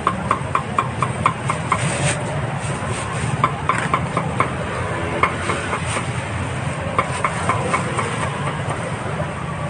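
A cleaver chopping grilled meat on a board in several quick runs of sharp, ringing knocks, about four or five a second, over a steady low rumble of traffic and market noise.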